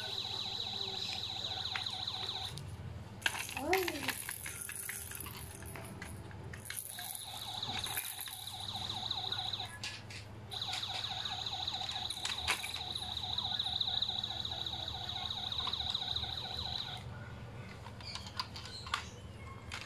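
A high, rapidly pulsing tone that stops and starts in three long stretches, with a short rising-and-falling squeak about four seconds in. Scattered sharp clicks of hard plastic toy parts being handled and set down on carpet.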